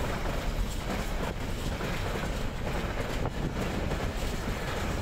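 Container freight train's wagons rolling steadily past on the rails, mixed with wind buffeting the microphone.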